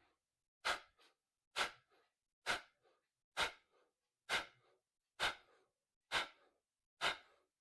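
Kapalbhati breathing: a man's sharp, forceful exhalations through the nose, about one a second, eight in all, each trailed by a faint softer sound.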